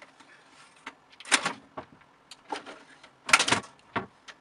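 A kitten's claws scratching and scraping at a hard black case: two short scrapes, about a second in and about three seconds in, with light clicks and taps between.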